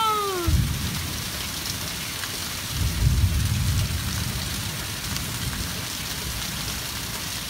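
Steady rain falling, with thunder rumbling twice: a short rumble about half a second in and a longer, louder one about three seconds in.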